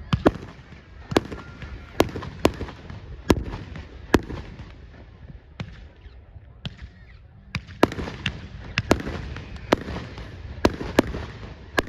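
Fireworks display: an irregular string of sharp bangs, roughly one to two a second, over a continuous low rumble of other bursts, easing briefly about halfway through.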